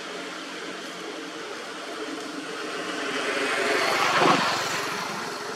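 A vehicle passing by: a rushing engine and road noise that swells to a peak about four seconds in, then fades.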